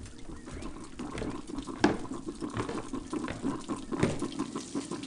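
Water running from a tap, with a few sharp clicks or knocks over it, the loudest about two seconds in and another near four seconds.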